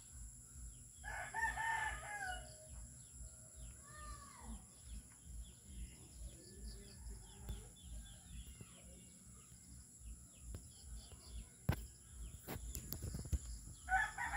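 A rooster crowing once about a second in, a long call that drops in pitch at its end, with smaller bird chirps afterwards. A few sharp clicks come about three-quarters of the way in, and another crow starts just before the end.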